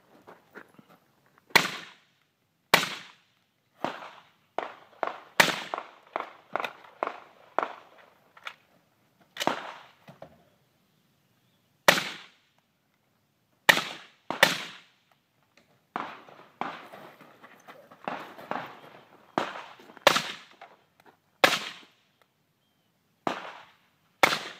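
A string of rifle shots from an AR-style rifle fired in quick succession, mostly about a second apart, with fainter pops between them and a short pause about halfway through.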